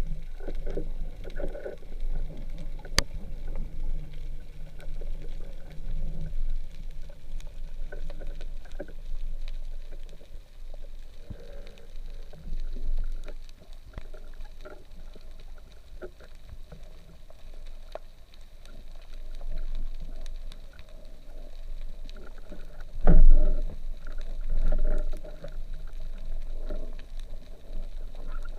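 Underwater sound through a camera's waterproof housing: a steady low rumble of moving water with scattered clicks and crackles, and a low hum during the first six seconds. A single loud knock comes about 23 seconds in.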